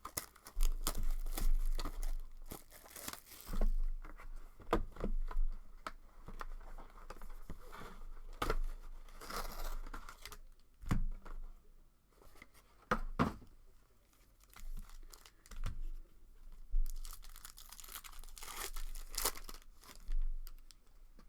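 Sports card packs being torn open: irregular tearing and crinkling of the foil pack wrappers, with short clicks and rustles of cards being handled.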